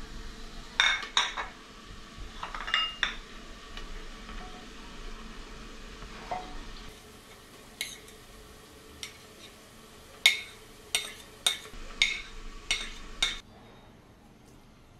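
Metal spoon clinking and tapping against a bowl and the rim of an aluminium pressure cooker pot as spices and ginger-garlic paste are added, over a faint sizzle of frying. A few clinks come about a second in and around three seconds in, then a run of about six quick taps near the end.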